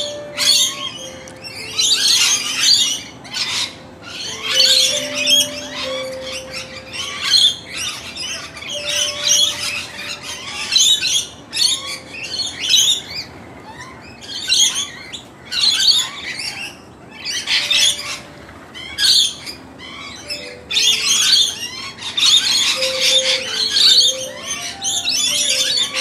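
Mixed flock of wild birds calling over one another: noisy miners, rainbow lorikeets and Australian magpies, in quick overlapping chirps and squawks, with a juvenile magpie calling to be fed. Faint background music with long held notes runs underneath.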